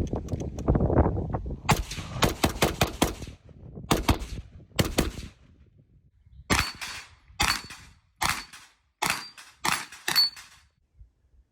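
Gunfire from an H&K firearm: rapid, closely packed shots for the first few seconds, then six single shots spaced a little under a second apart.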